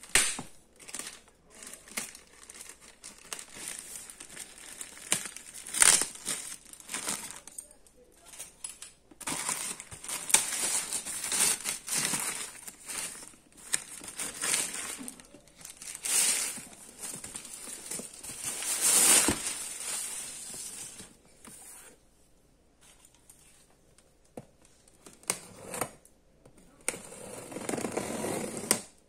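Thin black plastic mailer bag crinkling and tearing in irregular bursts as a cardboard box is worked out of it. Near the end comes a lower, rougher scraping against the cardboard box.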